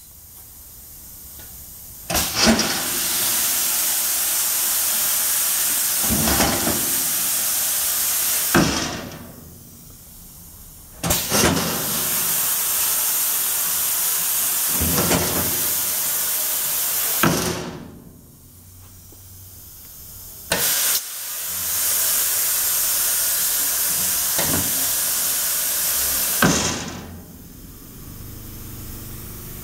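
Lion Machinery 1836 pneumatic cleat bender cycling three times. Each cycle is a loud hiss of compressed air lasting about six seconds, with a clunk as it starts, another midway and a last one as the air cuts off.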